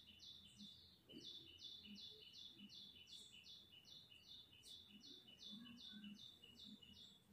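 A bird calling faintly in the background: a short falling chirp repeated about three times a second, with a brief pause about a second in, stopping near the end.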